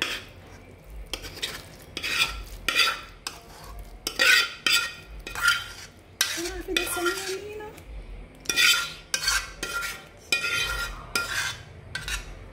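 Metal spoon scraping and knocking against the inside of a metal pot while scooping cooked macaroni out of it, in a long run of separate scrapes.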